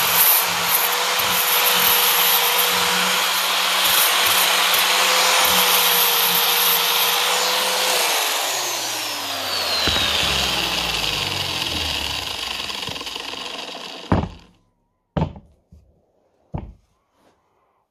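Angle grinder with a sanding disc running against a wooden carving, then switched off about eight seconds in, its pitch falling as the disc spins down over several seconds. Three sharp knocks follow near the end.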